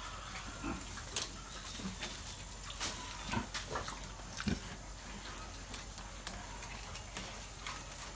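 Pigs grunting at irregular intervals, with scattered short clicks and knocks.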